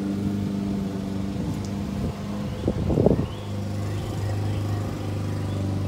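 A motor running steadily with a low hum, and a brief louder burst of noise about three seconds in.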